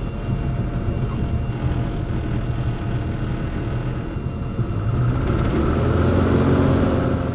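Grob Tutor's four-cylinder Lycoming piston engine and propeller running at high power, heard from inside the cockpit as the aircraft rolls fast along the runway; the hum grows louder about five seconds in.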